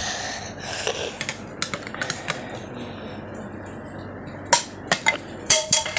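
Scattered clicks and knocks from handling a just-pulled fire alarm pull station, with a sharper cluster of clicks near the end.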